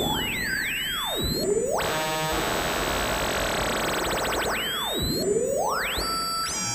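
Synthesizer noise effects through a Pioneer SR-202 spring reverb: a hissing noise wash with swooping pitch sweeps that dive down and climb back up, twice.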